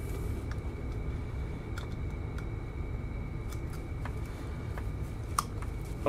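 Laptop power-adapter cord and plug being handled: a few faint, scattered clicks and rustles, the sharpest near the end, over a steady low hum and a faint high whine.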